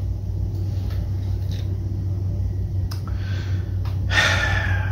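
Steady low hum under a pause in talk, with a man taking an audible breath about four seconds in and a few faint mouth clicks.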